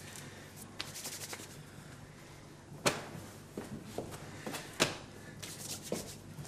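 Rustling and handling noises of people moving about, with scattered light taps and two sharper knocks about three and five seconds in, over a faint steady low hum.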